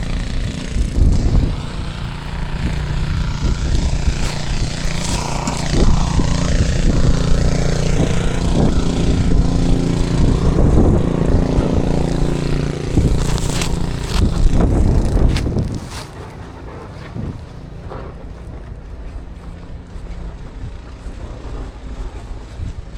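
A large vehicle's engine running close by, a steady low hum with noise on top. It drops away about sixteen seconds in, leaving quieter street noise.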